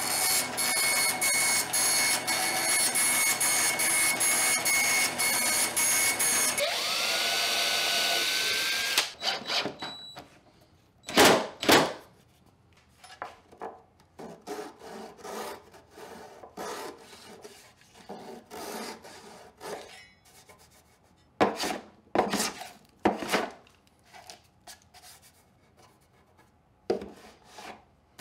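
A bandsaw running and cutting through pegboard for about six and a half seconds, then winding down. After that come short separate bursts of a flush-cut hand saw rasping across wooden dowel plugs to trim them flush with a plywood panel.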